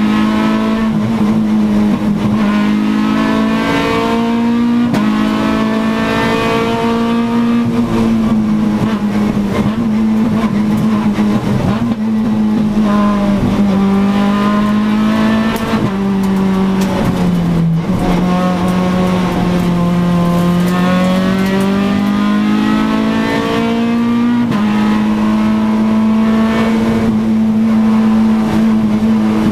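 Renault Clio RS rally car's engine heard from inside the cockpit, driven hard: the revs climb and drop in steps with quick gear changes, several upshifts in the first eight seconds. Through the middle the revs fall away and run lower and more unevenly as the driver lifts and shifts down, then climb hard again near the end.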